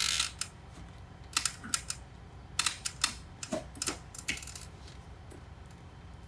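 Airtight tape around a timber joist end being rubbed down with a plastic press-fix tool and worked by hand, its tape and paper backing crinkling: a run of short, dry scratchy crackles in irregular clusters, thinning out about two-thirds of the way through.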